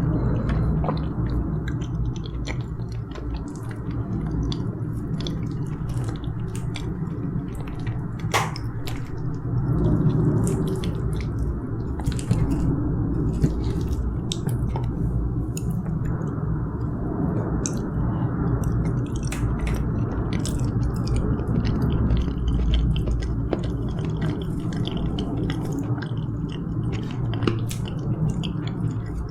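Close-miked chewing of soft steamed kabocha squash, with many small mouth clicks. Under it runs a steady low rumble of background noise, which the uploader puts down to nearby construction work.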